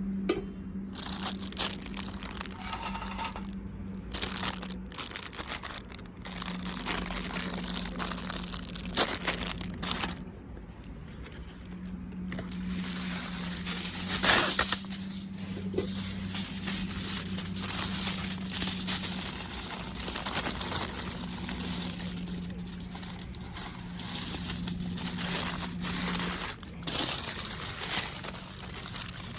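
Irregular crinkling and rustling, like something crumpled or handled, over a steady low hum that stops and starts several times.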